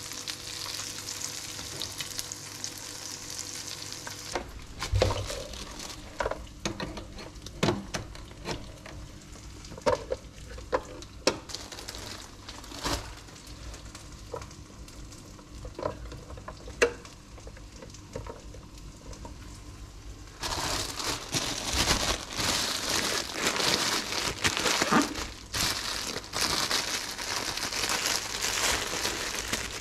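Eggs sizzling as they fry in oil in a pan for the first four seconds or so. Then scattered knocks and clicks as bread slices are handled into an open electric sandwich maker. About two-thirds of the way in, a plastic bag begins crinkling steadily as it is handled.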